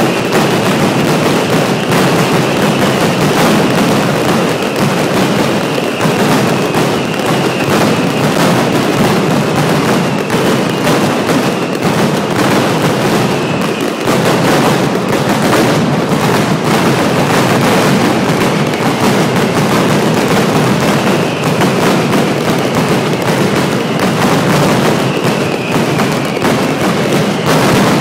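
Mascletà firecrackers going off in a dense, unbroken barrage of bangs, with high whistles gliding down in pitch now and then.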